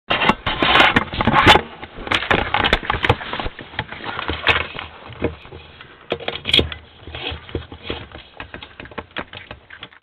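Crackling, scraping and rustling on a trail camera's microphone as an animal right against the camera brushes past it and moves off. The sharp clicks are loudest in the first few seconds and thin out toward the end.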